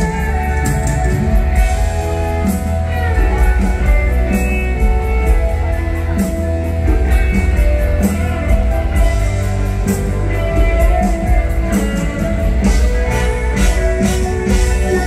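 Live mor lam band playing an instrumental passage: a plucked-string lead over a steady drum-kit beat.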